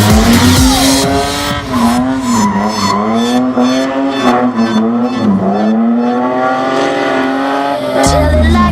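Holden VL Commodore's RB30 straight-six engine revving up and down repeatedly as the car is thrown around a motorkhana course, the engine note rising and dropping several times, with tyre squeal.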